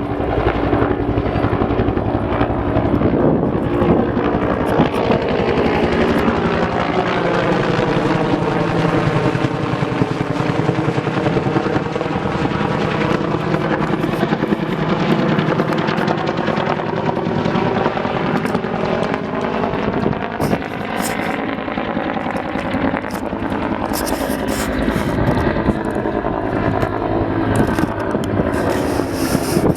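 Firefighting helicopter flying close by, its rotor and engine noise sweeping slowly in pitch as it moves. Several short, sharp noises come in over it near the end.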